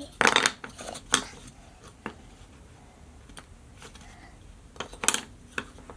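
Wooden jigsaw puzzle pieces clicking and knocking against the wooden puzzle board as a piece is tried in place: a handful of scattered sharp taps, a cluster near the start and the loudest about five seconds in.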